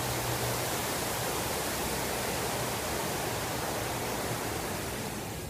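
Steady rushing of water cascading down the walls of the 9/11 Memorial reflecting pool into the basin.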